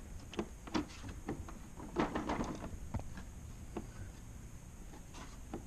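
Light clicks and knocks of tools and a tool case being handled in a toolbox drawer, with a short flurry of clatter about two seconds in.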